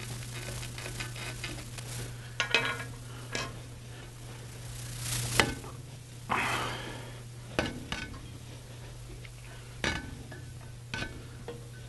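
Old rubber tire being peeled and pulled by hand off the upper wheel of a Powermatic Model 143 bandsaw: scattered rubbing and scraping with a few sharp snaps and clicks as the glued rubber comes free and the wheel is turned. A steady low hum runs underneath.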